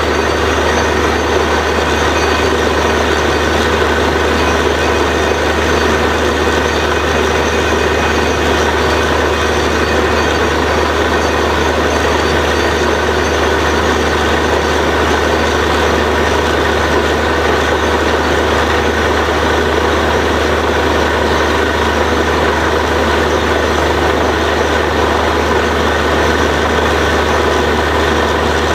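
Truck-mounted borewell drilling rig running under load while drilling: a loud, constant engine drone with a steady hum, unchanging throughout.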